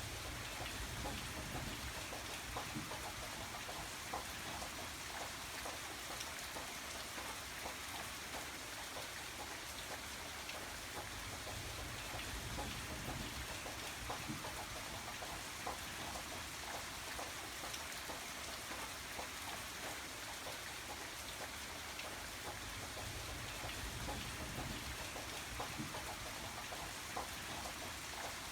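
Steady rain falling, individual drops ticking distinctly over an even hiss.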